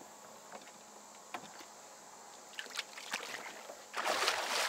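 A flathead catfish splashing into the river beside the boat about four seconds in, one short loud splash, as it is let go. Before it come a few faint knocks from handling in the boat.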